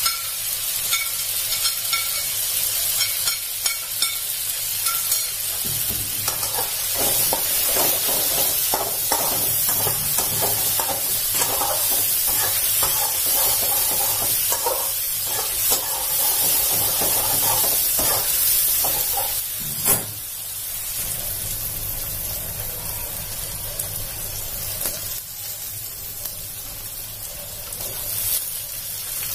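Chicken frying in oil in a metal wok, a steady sizzle, with a spatula stirring and scraping through the middle and one sharp knock about two-thirds through. Near the end, chopped banana stem is tipped into the pan.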